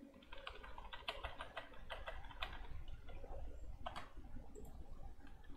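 Faint typing on a computer keyboard: a quick run of keystrokes that thins out to a few scattered clicks over the last couple of seconds.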